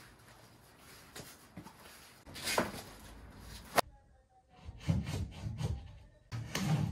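Rubbing and scraping in several bursts, with a single sharp click a little under four seconds in.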